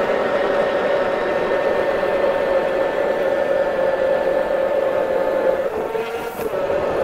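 ION Alpha battery-powered electric ice auger drilling through lake ice: a steady motor whine. The pitch drops for about a second near the end, then comes back up.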